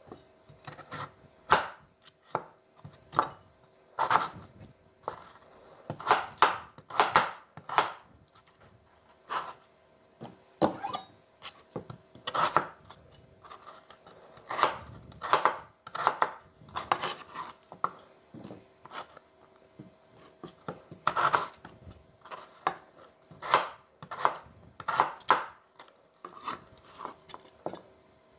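Large kitchen knife cutting peeled raw potatoes into chunks on a plastic cutting board: irregular sharp knocks of the blade striking the board, often several in quick succession, with short pauses between.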